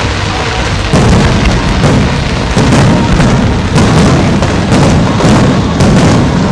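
Aerial firework shells bursting overhead in an uneven run of sharp bangs and booms, about one or two a second, over music.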